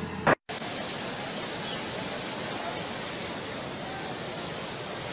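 Steady, even rushing noise with no clear pitch, opening with a short loud pop and a moment of dead silence where one clip cuts to the next.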